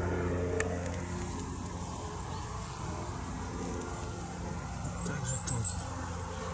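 Steady low hum of a distant engine, with no change in pitch throughout.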